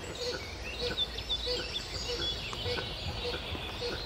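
Wild songbirds chirping and singing in woodland, with several high, quick whistles, while a short low call repeats about twice a second.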